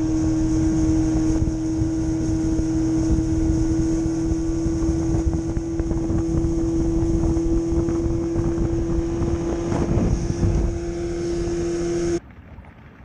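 Boat's outboard motor running steadily at speed with a steady engine tone and rushing wind and water noise. The tone rises slightly in pitch near the end, then the sound cuts off abruptly.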